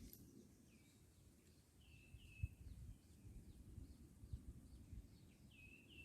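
Faint bird calls: short downward-slurred chirps, often in pairs, repeating every second or so, over a low uneven rumble.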